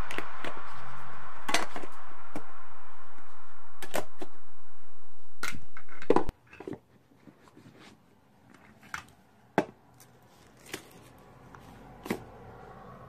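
Cardboard phone packaging being handled and set down on carpet: a string of light clicks and taps from the box and its inner tray. A steady background bed, likely music, runs under the first half and stops abruptly about six seconds in, leaving only the scattered taps.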